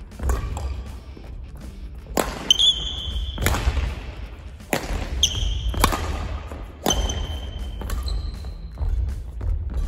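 A badminton singles rally: rackets striking the shuttlecock in sharp cracks about once a second, with court shoes squeaking briefly on the hall floor and footsteps thudding between shots.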